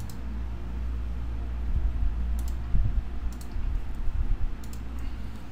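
A handful of sharp computer mouse clicks, spaced a second or so apart, over a low steady hum on the microphone.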